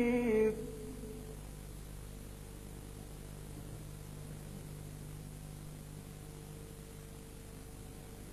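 A man's chanted Quran recitation ends on a held note about half a second in. It leaves a steady electrical hum and faint hiss from the recording in the pause between verses.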